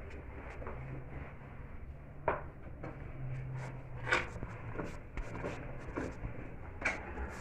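A spoon knocking and scraping in a bowl as cake batter is stirred, with a few sharper clacks against the bowl's rim, over a low steady hum.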